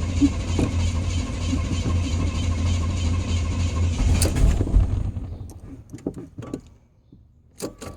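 Truck engine running steadily, then stopping about four and a half seconds in with a brief clunk as it winds down, leaving only scattered small clicks.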